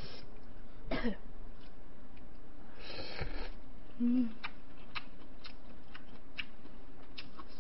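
A person eating at close range: short breathy mouth sounds, a brief low hum about four seconds in, then a run of small sharp chewing clicks at about two a second.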